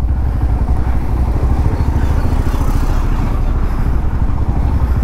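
Motorcycle engine running steadily while riding slowly, a continuous low rumble with road noise.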